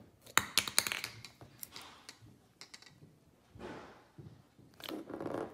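A few light clicks and taps of the can being handled, then an Easy Cheese aerosol can dispensing spray cheese in two short hissing sputters near the end.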